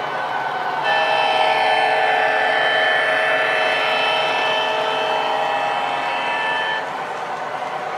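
O-gauge MTH F7 diesel model's Proto-Sound 3.0 speaker sounding a steady multi-note horn for about six seconds, starting about a second in and cutting off suddenly, over the running rumble of the train on three-rail track.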